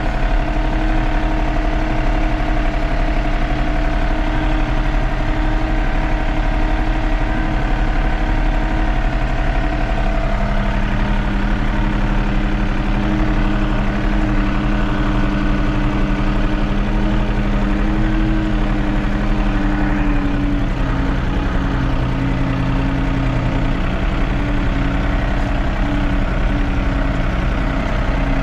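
Tractor engine running steadily while driving slowly across a pasture, its pitch shifting a little about ten seconds in and again about twenty seconds in.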